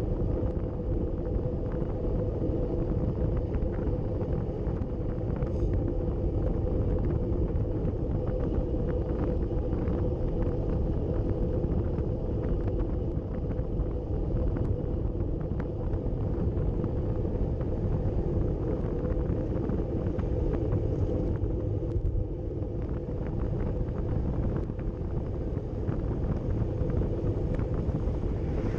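Steady wind rush and road rumble on a road bike's mounted camera while riding in a fast group, with scattered faint ticks.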